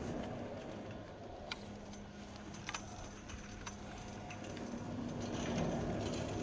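Skis sliding through a few inches of fresh snow: a steady soft hiss that grows louder over the last couple of seconds, over a faint low hum, with a couple of sharp clicks.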